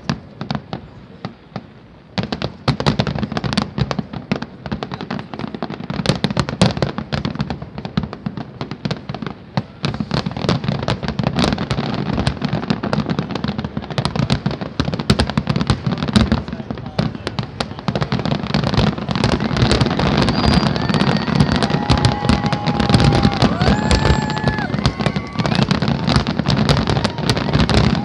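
Large fireworks display: a continuous run of bangs and crackling bursts, growing denser and louder through the second half.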